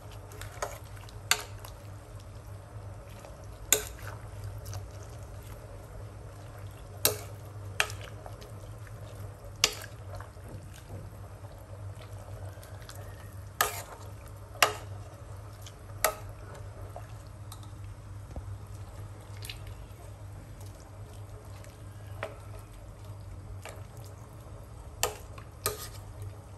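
A metal ladle stirring soup in a stainless steel pot, clinking sharply against the pot about a dozen times at irregular intervals, with faint liquid sloshing. A steady low hum runs underneath.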